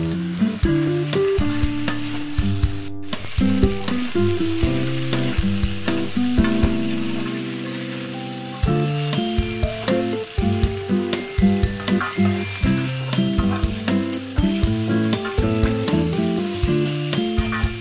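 Chicken pieces sizzling as they fry in a wok, stirred with a metal spatula that scrapes and clicks against the pan. Instrumental background music plays underneath.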